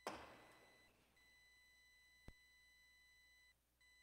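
Near silence in a reverberant church, with a faint steady high-pitched electronic tone. A single thump at the very start rings out and fades over about a second, and a faint click comes about two seconds in.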